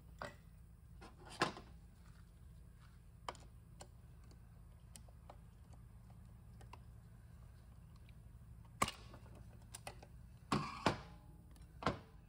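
A few light clicks and knocks of metal parts being handled as the overdrive band servo is worked out of its bore in a Ford 4R70W transmission case, a cluster of them near the end, over a faint steady low hum.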